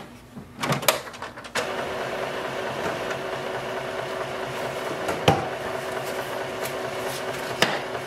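HP OfficeJet Pro 9125e inkjet printer running its internal mechanism as it prepares its newly installed ink cartridges: a steady whir that starts about a second and a half in after a couple of clicks, with a single sharp click about halfway through.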